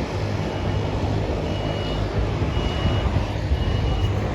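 A vehicle's warning beeper sounding a steady high-pitched beep about once a second over a low engine rumble.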